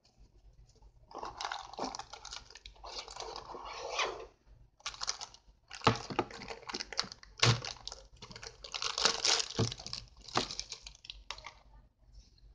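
Plastic bag and box packaging rustling and crinkling as a toy drone's remote controller is unpacked by hand, with a few sharp knocks of it against the table.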